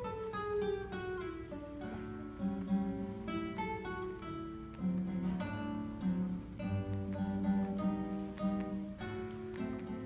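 Classical guitar played solo: a quick stream of plucked melody notes over repeated bass notes, with a run of notes stepping downward in the first second or so.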